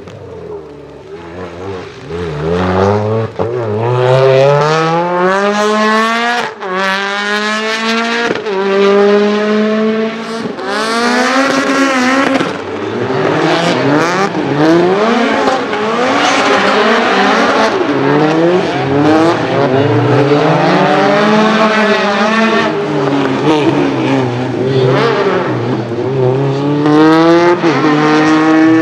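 Lotus Exige Cup 260 rally cars' supercharged four-cylinder engines revving hard, the pitch climbing and dropping again and again as they accelerate, lift and shift through the tyre-stack chicanes.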